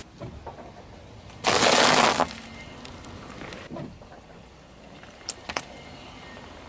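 Car tyre rolling over and crushing a foil-wrapped chocolate figure on asphalt: one loud crunch with foil crackle lasting under a second, about one and a half seconds in. Later the tyre flattens a plastic toothpaste tube, with two sharp cracks close together.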